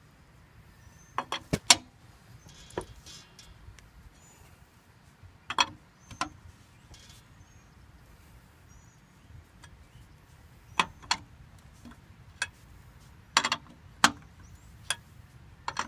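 Lug wrench working the wheel's lug nuts loose: scattered sharp clicks and knocks at irregular intervals, some in quick pairs.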